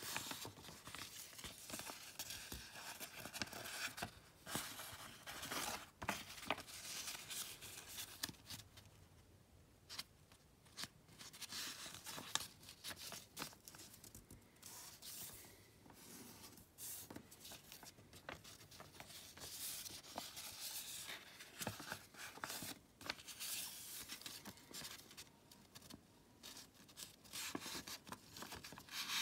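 A sheet of origami paper being folded and creased by hand: irregular rustling and crinkling, with crisp scrapes as fingers run along the folds, and a brief lull about nine seconds in.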